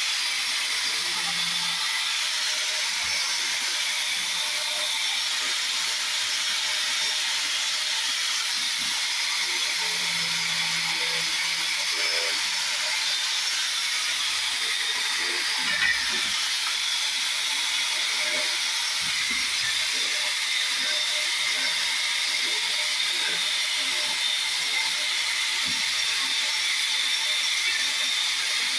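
A steady hiss with a single brief click about sixteen seconds in.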